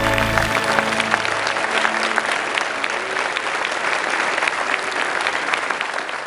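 Audience applauding, a dense patter of many hands clapping. The last held chord of the music fades out under it in the first second or two.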